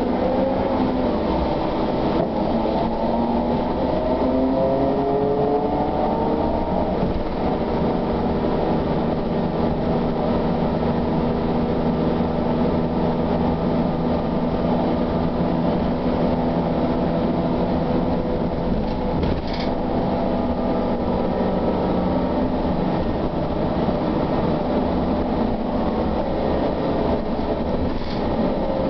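SOR TN12A trolleybus heard from inside the passenger cabin: the electric drive's whine rises in pitch over the first several seconds as the bus accelerates, then settles into a steady hum over the rumble of the ride.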